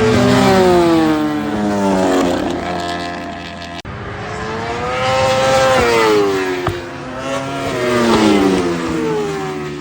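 1000 cc superbike race motorcycles passing at high revs, several in succession; each engine note climbs, then falls in pitch as the bike goes by.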